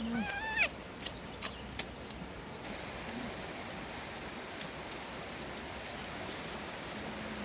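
A young monkey's short, high cry with a wavering pitch, followed by a few sharp clicks, then a steady outdoor background hiss.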